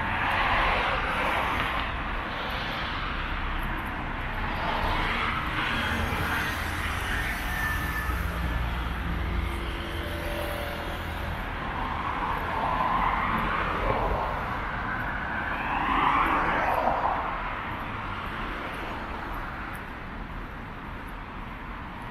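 Street traffic: a steady low rumble with several vehicles passing one after another, each swelling and fading over a second or two.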